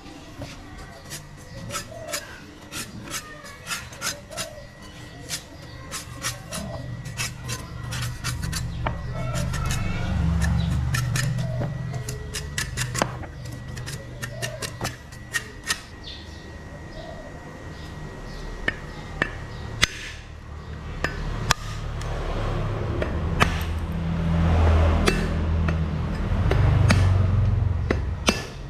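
Dry coconut husk being shaved and scraped with a hand tool: a rapid run of sharp strikes and crackles on the fibre and shell, then rougher, louder rasping scrapes over the last several seconds.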